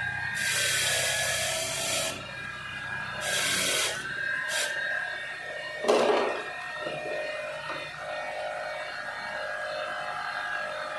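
Electric grinder running with a steady high whine. It is pressed against a part in three short hissing passes, the whine sagging slightly under each. A sharp knock sounds about six seconds in.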